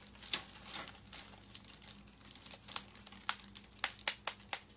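Clear plastic bags holding plastic model-kit sprues crinkling and crackling as they are handled. The crackles are irregular and grow sharper and more frequent in the second half.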